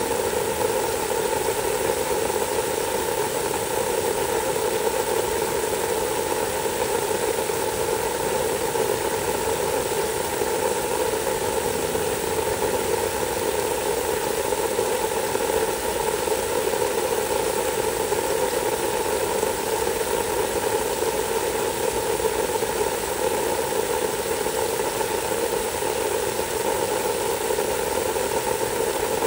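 Garden hose spraying a steady stream of water onto soaked wood mulch: a continuous, even hiss.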